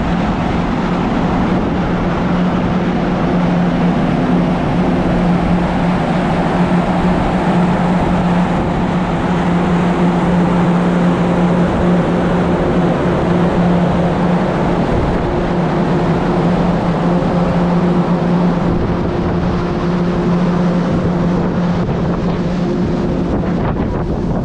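Steady, loud drone of the ferry Sunflower Kirishima's engines under way, a constant low hum under rushing wind and water noise.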